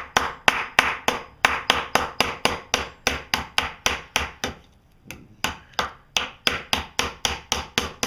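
Hammer tapping repeatedly on the end of a roofing nail, peening it over a washer to form a homemade rivet through leather. Quick, even blows about three a second, with a short pause a little past halfway before they resume.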